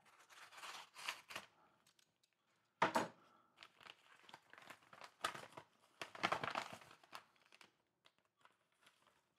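Padded mailing envelope being peeled open by hand: faint, intermittent crinkling and tearing of paper and plastic. The loudest rip comes about three seconds in, and a run of rustles follows between about five and seven seconds.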